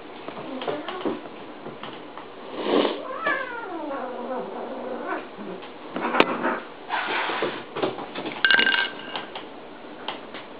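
A cat caterwauling while it wrestles a puppy: a long yowl that falls in pitch a few seconds in and a shorter high cry near the end, amid scuffling and a sharp knock about six seconds in.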